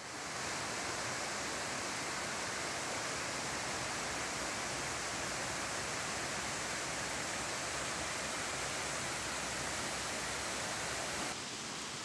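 Steady rush of a rocky mountain creek flowing over boulders, an even hiss without a break. Near the end it cuts to a slightly quieter steady hiss.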